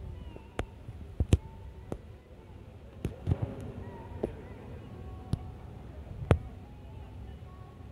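Train wheels clacking over rail joints as the coach rolls slowly, a run of sharp, irregularly spaced clacks over a low rumble.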